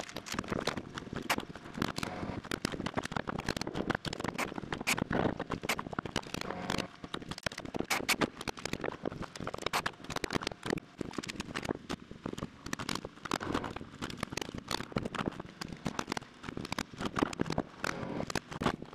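A rapid, irregular run of sharp clicks and knocks, several a second, from roof framing: a pneumatic framing nailer driving nails into rafters, with wood knocking on wood.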